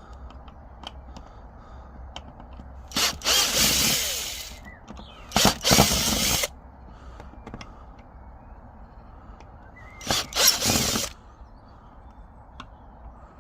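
Power drill unscrewing screws from a wooden bench, in three short runs with small clicks and knocks between them.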